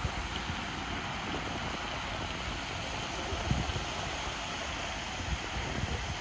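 Steady rushing hiss of fountain jets spraying and falling back onto the lake, with a few low gusts of wind on the microphone.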